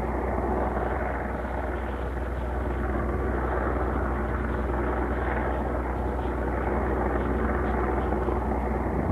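Steady low drone of an aircraft engine, unchanging in pitch and level.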